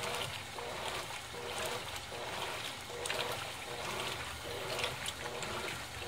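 Colormaq 15 kg top-loading washing machine agitating a load of jeans in low water on its turbo wash cycle: the water sloshes and churns, swelling and easing in gentle waves with the agitator's strokes.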